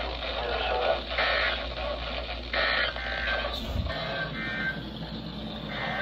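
Voice of a NOAA weather radio broadcast playing from a Midland handheld emergency radio's small speaker, over a steady low hum. There is a short low thump a little under four seconds in.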